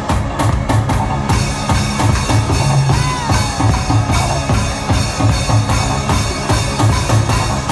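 Music with a drum kit playing a steady beat, with bass drum strokes. About three seconds in, a brief tone glides downward.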